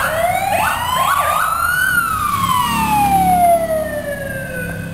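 A police escort siren wails in one slow rise of about two seconds and a longer fall. In the first second and a half a second siren adds quicker whoops. Vehicle engines rumble underneath, loudest about three and a half seconds in.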